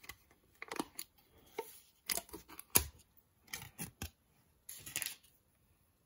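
Plastic packaging being handled: a string of short, sharp crinkles and snaps with quiet gaps between them, the loudest about three seconds in.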